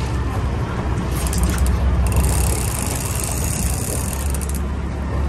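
Boat engine running at idle, a steady low rumble, with a high hiss for about two seconds in the middle.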